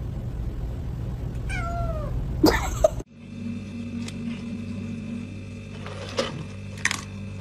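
A kitten meows once, a cry that falls in pitch, over a low rumble, with a couple of sharp knocks just before the sound cuts off about three seconds in. Then comes a steady hum with a few short clicks as a cat crunches dry kibble.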